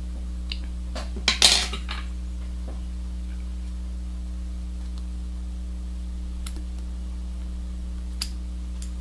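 Small clicks and a brief rustling burst about a second and a half in, from fly-tying scissors and the deer-hair fly being handled at the vise, over a steady low electrical hum.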